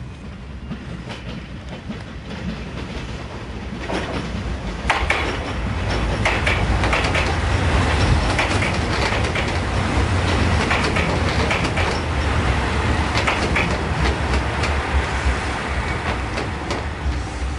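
JR Shikoku 2700 series diesel train passing close by over points and rail joints: engine rumble and a run of wheel clicks and clacks. The sound builds about four seconds in and eases near the end as the train goes by.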